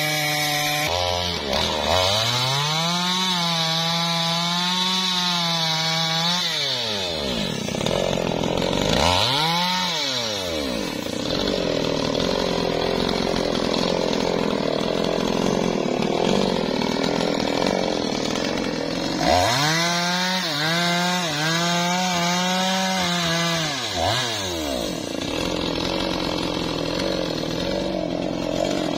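Two-stroke chainsaw running and being throttled up to full revs and back down: two long high-revving runs of a few seconds each, a quick blip in between, and lower running the rest of the time.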